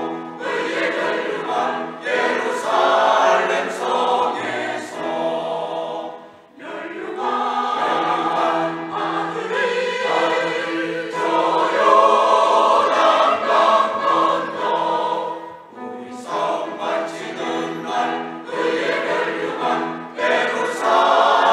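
Church choir of mixed voices singing a hymn in full, sustained chords, with short breaks between phrases about six seconds in and again near sixteen seconds.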